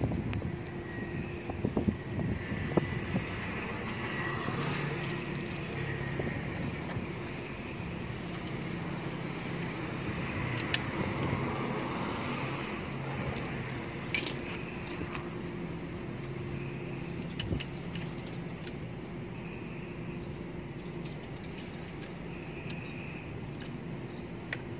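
Scattered light metallic clicks of a hex key and stem bolts as a bicycle stem is loosened, over a steady hum of vehicle engines.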